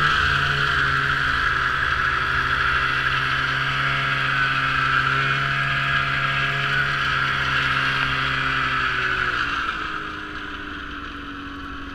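Snowmobile engine running at a steady speed, its note mixed with a loud rushing noise of track and motion. About nine and a half seconds in the engine note falls and the sound gets quieter as the machine slows to a lower, steady running note.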